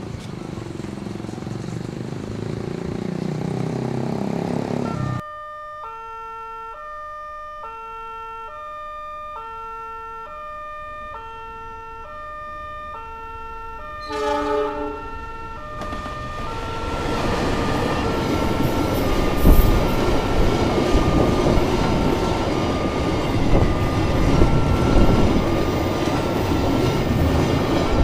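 A diesel freight train of fuel tank wagons approaching, its engine rumbling and rising in pitch. After a sudden break, the level crossing's electronic warning system sounds an alternating two-tone chime, changing about once a second. About 14 s in the locomotive horn blows briefly, and from about 17 s the train's wheels and wagons roll noisily across the crossing under the continuing chime.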